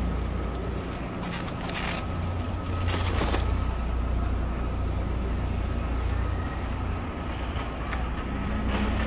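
Low, steady rumble of a plastic shopping cart being pushed along a store floor, with a few brief rustling bursts near the start.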